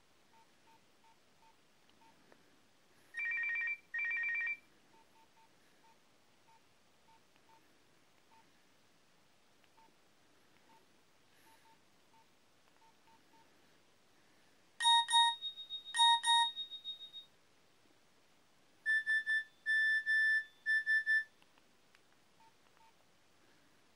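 Nokia 6230i mobile phone playing short electronic alert tones: a pair of trilling beeps about three seconds in, two ringing beeps around fifteen seconds in, and four quick beeps around twenty seconds in, with faint ticks between them.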